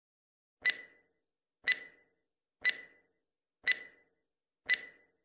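Countdown-timer clock sound effect: five short, sharp ticks, evenly spaced about one a second, each with a brief ringing tone.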